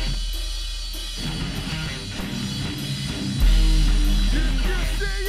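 Rough recording of a heavy rock song: electric guitar and drum kit, with a deep low note that hits hard about three and a half seconds in.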